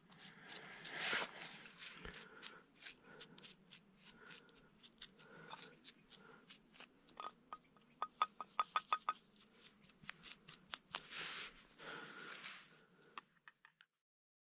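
Parang blade working a dry stick into tinder shavings: a string of short scraping strokes and clicks. A quick run of about ten ringing clicks comes around eight seconds in.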